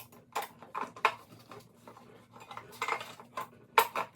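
Parts of a Chucky animatronic being handled and fitted together while a leg is attached: irregular clattering knocks and clicks, the sharpest near the end.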